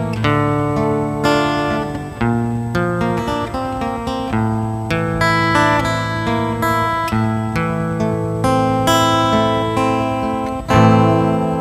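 Instrumental music on a plucked string instrument: a melody of single picked notes that ring and fade, then a louder chord near the end that rings out and dies away.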